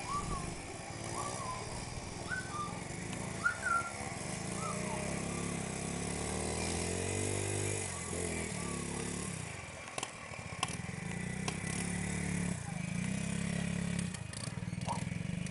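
Quad ATV engine running and revving as it is ridden through snow, its pitch rising and falling with the throttle. A few short shouts in the first few seconds.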